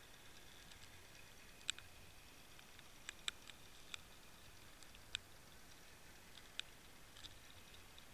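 Near silence through an underwater camera: a faint hiss with about six sharp, short clicks at irregular intervals.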